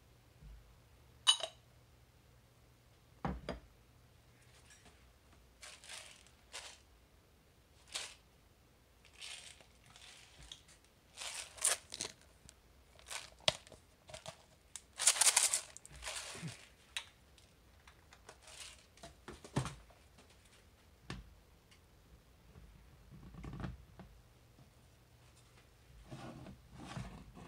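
Scattered short, crackly rasps as black pepper is dispensed from a spice container over an omelette in a cast iron skillet, the longest burst about halfway through. A sharp click sounds just over a second in.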